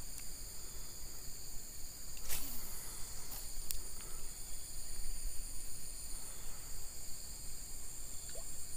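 Steady, high-pitched insect chorus that runs unbroken, with a low rumble beneath it. A brief rushing noise comes about two seconds in, followed by a few faint clicks.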